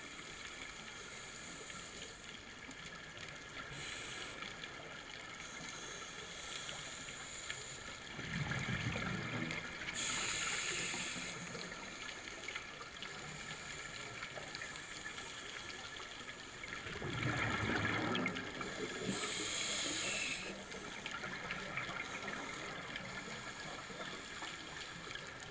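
Scuba diver breathing through a regulator underwater: twice, a rumbling burst of exhaled bubbles followed by the hiss of an inhale, over a faint steady background hum.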